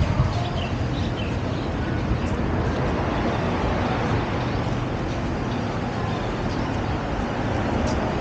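Steady rumble of road traffic, with a few faint short chirps about a second in.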